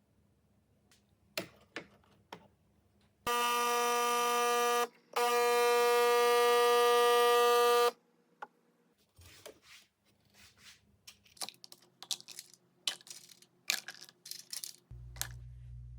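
Two long electric buzzes, the first about a second and a half, the second about three seconds, followed by a run of light clicks and taps and a low steady hum that starts near the end.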